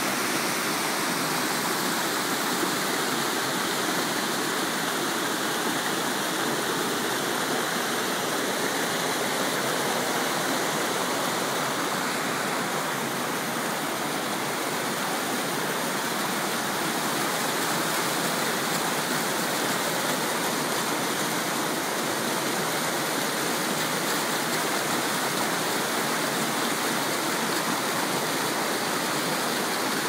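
Stream water cascading over rocks in a small waterfall, a steady rushing splash that does not change.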